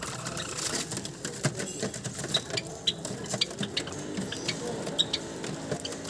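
A flock of Java sparrows feeding from wooden seed boxes: a dense patter of small pecking clicks, with a few short high chips from the birds.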